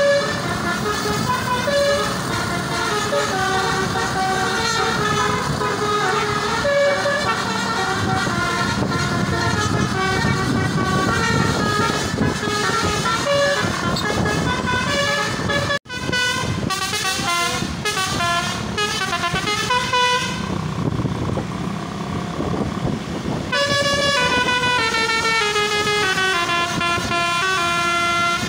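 A bus's telolet basuri musical horn playing a tune, a run of loud, multi-toned horn notes stepping up and down. About two-thirds of the way through, the tune breaks off for a few seconds of rushing noise, then starts again.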